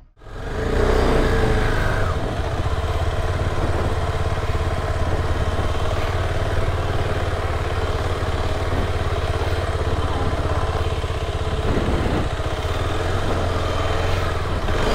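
KTM adventure motorcycle's engine running steadily at low speed while the bike is ridden slowly, without hard revving.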